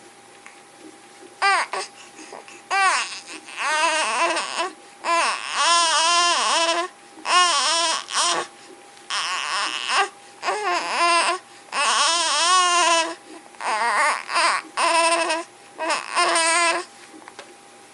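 A baby making a string of strange, high-pitched vocal noises, somewhere between crying and babbling, in short bursts that waver and slide up and down in pitch with brief pauses between them. A faint steady tone runs underneath.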